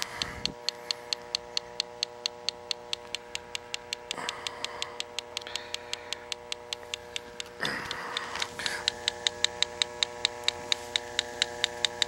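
H10G electronic refrigerant leak detector ticking at an even rate of about four ticks a second as its probe is swept along the bottom of a micro-channel condenser coil searching for a refrigerant leak, with a faint steady hum beneath and brief rustles about four and eight seconds in.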